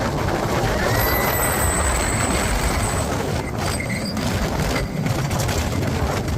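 Roller coaster train running along its track: a steady rumble with thin, high wheel squeals.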